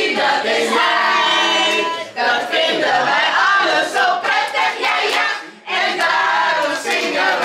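A group of people singing a birthday song together, loudly and in phrases, with short breaks about two seconds in and again just past halfway.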